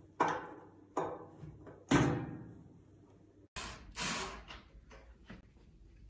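Sheet-metal clanks and knocks from a microwave's steel mounting-kit bracket and casing being handled. There are three sharp knocks that ring and die away in the first two seconds, the loudest about two seconds in, then after a break two more knocks with a rasping scrape.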